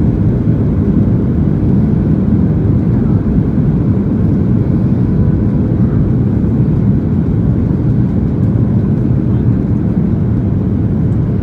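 Steady low rumble of cabin noise inside a Boeing 737-800 on approach: air rushing past the fuselage and the drone of its CFM56 engines, even throughout.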